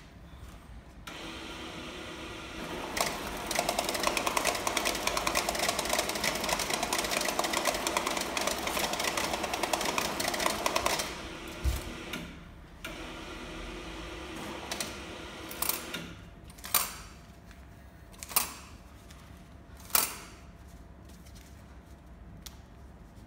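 KOA-550 multi-pocket banknote sorter spinning up, then feeding a stack of notes through with a fast, dense rattling for about eight seconds before stopping. A quieter, shorter run follows, then three sharp clicks near the end.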